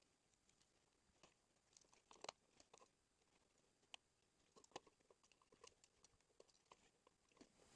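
Near silence with faint, scattered small clicks and scrapes of hand handling: a starter cord being worked through the small hole in a recoil starter.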